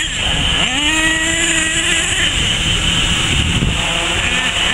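Two-stroke nitro engine of an HPI Savage 4.6 RC truck revving: a rising whine about half a second in that holds for over a second, then shorter revs near the end. A steady high whine, typical of multicopter rotors, runs underneath.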